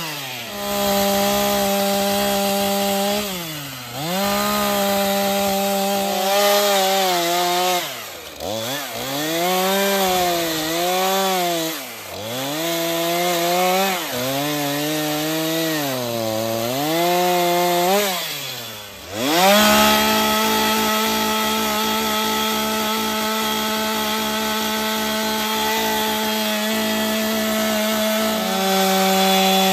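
Stihl two-stroke chainsaw cutting into a log slab at high revs. Its engine pitch repeatedly sags and climbs back as the chain loads in the wood. For the last ten seconds it holds steady and high.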